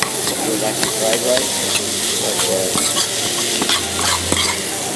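Fried rice sizzling in a hot pan as it is stirred and turned with a utensil, which scrapes and taps against the pan many times.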